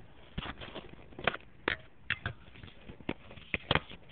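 Irregular clicks and light knocks of metal parts being handled as a bike peg is fitted onto the axle bolt.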